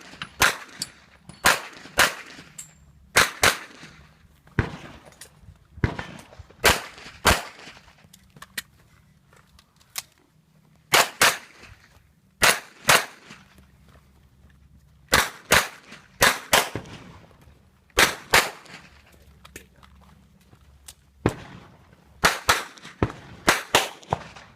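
Pistol fire: about two dozen sharp shots, mostly fired in quick pairs with pauses of one to three seconds between them, and a faster string of shots near the end.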